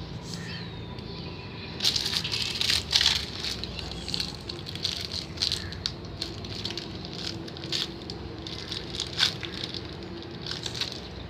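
Irregular rattling, clicking and scraping of small hard objects being handled, starting about two seconds in, over a faint steady hum.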